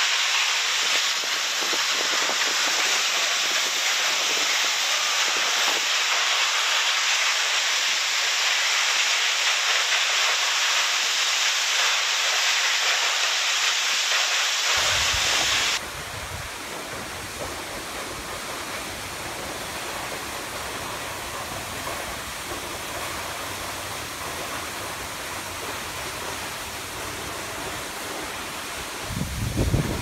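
Steady rush of Pinaisara Falls, Okinawa's tallest waterfall, pouring into its plunge pool. About 16 seconds in the sound drops to a quieter, deeper rush, which swells into a louder low rumble near the end.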